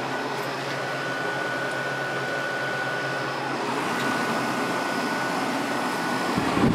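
2002 Whirlpool 5,000 BTU window air conditioner running steadily in cooling mode on medium fan speed: a steady rush of blower air over the hum of its Rechi Precision rotary compressor, with a thin steady whine.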